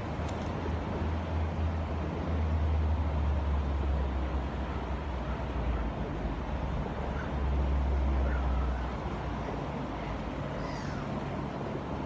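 Steady rush of a flowing river under a low rumble that swells twice, with a few faint bird chirps in the second half.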